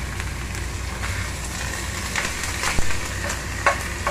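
Minced pork sizzling in hot oil in a frying pan, with a few sharp clicks and knocks as a wooden spatula presses and breaks up the meat against the pan.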